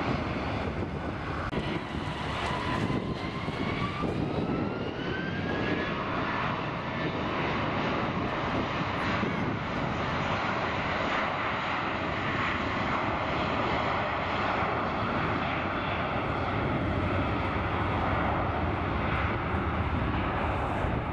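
Airbus A320 jet engines on the runway, spooling up with a rising whine about two seconds in, then running steadily and loud.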